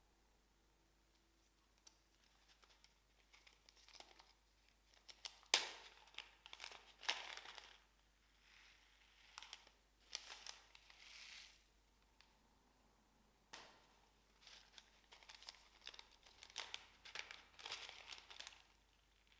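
Irregular crinkling and crackling handling noises come in bursts, with a sharp snap about five and a half seconds in. They come from slime-making materials being worked by hand.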